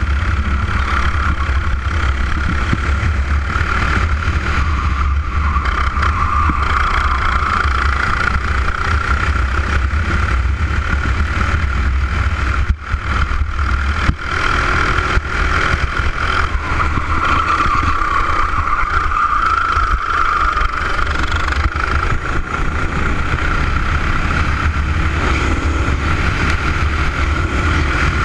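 Racing kart's engine running hard at racing speed, heard close from on board, its pitch wavering a little, with a brief dip in the sound near the middle.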